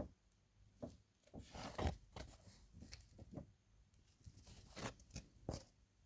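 Irregular small knocks, clicks and rustling of objects being handled, loudest about two seconds in and again near five seconds.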